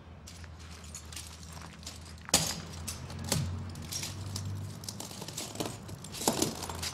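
Broken glass bottle shards crunching and clinking under bare feet stepping slowly onto the pile. One sharp crunch about two and a half seconds in is the loudest, with a few softer crunches after it.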